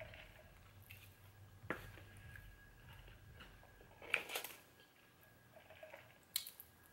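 Quiet eating and food-handling sounds: a few faint clicks of a plastic fork and cup, and a cluster of crackly rustles about four seconds in as fried chicken is picked out of a cardboard takeout box.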